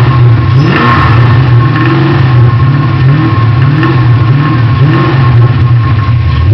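Ford Mustang 5.0 V8, a 347 stroker, running and lightly revved several times, with the knock that the owner takes for rod knock from a spun bearing.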